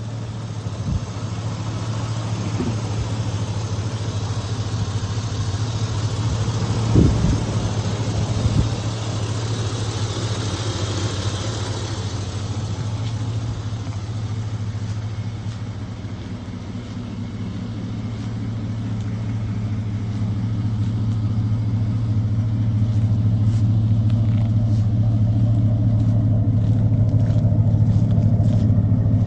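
Chevrolet Avalanche's 5.3-litre V8 running with a steady hum, with two short knocks about a third of the way in and the sound growing louder over the last third.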